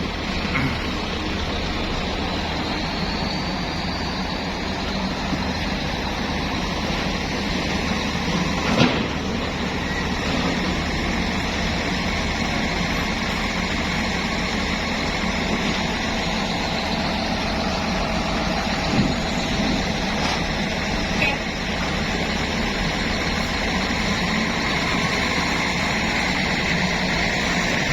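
Heavy vehicle engine running steadily, with a sharp clank about nine seconds in and a smaller one about nineteen seconds in.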